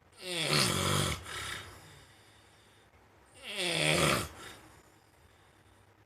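A hen making two rasping, snore-like noises about three seconds apart, each about a second long and falling in pitch. This is 'ngorok', the snoring of a chicken with respiratory disease.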